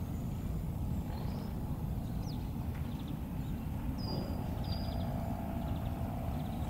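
Outdoor ambience: a steady low rumble with faint bird calls over it, a few short chirps and trills and two clear high whistles about four seconds in.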